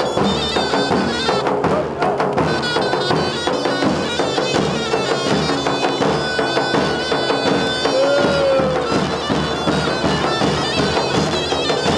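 Traditional Anatolian folk dance music led by a shrill reed pipe with a held, wavering melody over a steady drum beat.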